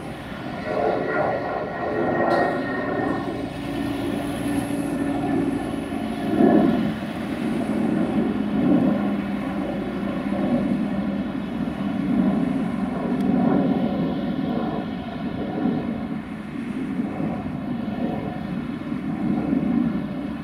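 Airbus A320-232 jet airliner climbing out just after takeoff, its twin IAE V2500 turbofans at climb power: a loud, continuous jet rumble that swells and fades unevenly.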